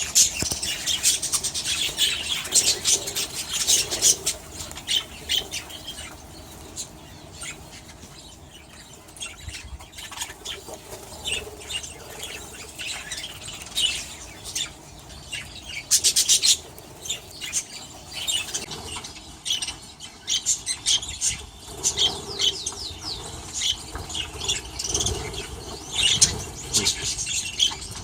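A flock of small aviary birds chirping and twittering in quick, high, overlapping notes. It is busiest at the start and again in the second half, with a quieter lull in the middle.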